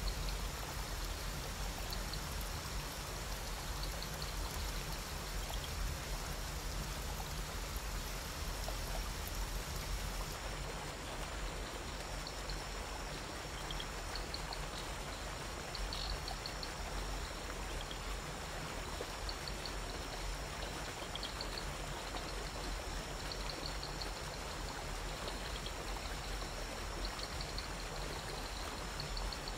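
Waterfall pouring into a pool: a steady, even rush of falling water. Faint short high chirps recur every few seconds over it.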